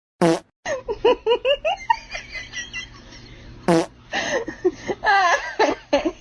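Two short, loud, fart-like blasts about three and a half seconds apart, each falling in pitch. Between and after them comes a run of quick, high-pitched human laughter and giggling.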